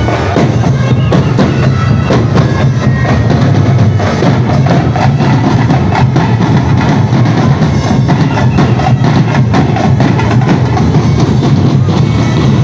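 Loud, fast percussion-band drumming of the Sinulog street-dance kind: many drums with sharp wood-block-like hits beat together in a dense, driving rhythm.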